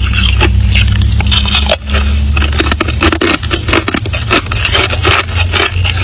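Hard ice being bitten and chewed close to the microphone: dense, crisp crunches and crackles in quick succession, over a steady low hum.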